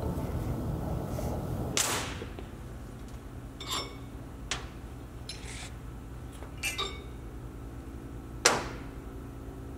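Metal parts of a clutch spring compressor being loosened and lifted off a UTV secondary clutch. There is a rattle for the first couple of seconds, then several light metallic clinks, some ringing briefly, and a louder knock about three-quarters of the way through as a part is set down on the bench.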